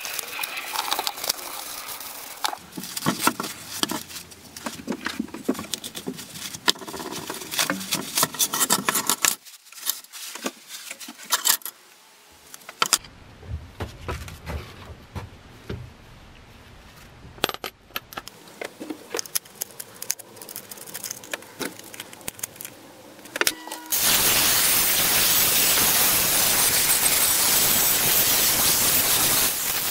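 Metal parts clinking and rattling with paper rustling as they are handled, then, about 24 s in, an angle grinder with an abrasive disc starts on the rusty steel machete blade: a loud, steady grinding that runs for about six seconds and is the loudest sound here.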